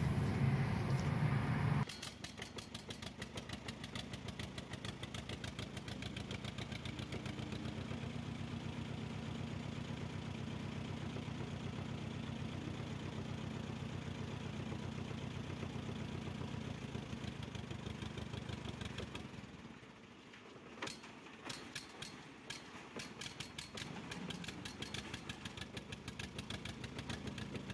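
Old tractor engine running with an even, rapid exhaust beat. About two-thirds of the way through it drops quieter and the beats turn uneven.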